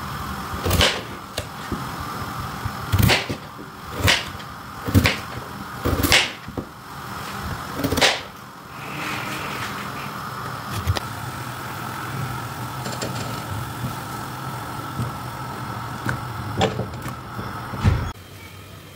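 A knife chopping a raw potato on a cutting board: about seven sharp chops, irregularly spaced, over the first eight seconds. A steady mechanical hum runs underneath and carries on alone afterwards, stopping suddenly near the end.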